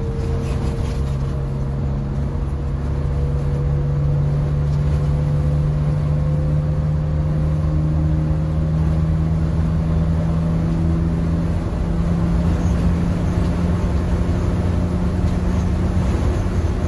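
Diesel engine and road noise of a 1980 MCI MC9 coach cruising on a highway, heard from inside the cab: a steady low hum whose pitch creeps slowly upward.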